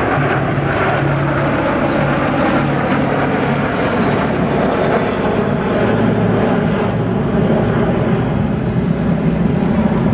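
Jet engines of a seven-ship formation of Aero L-39 Albatros jet trainers, each with a single turbofan, a loud steady rumble with a hiss as the formation climbs away.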